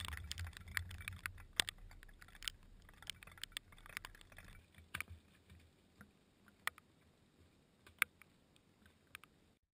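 Raindrops ticking irregularly on a waterproof action-camera housing. Wind rumbles low on the microphone and dies away about halfway through.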